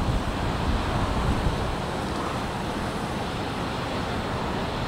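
Wind buffeting the microphone over a steady low rumble, the gusts easing after about a second and a half.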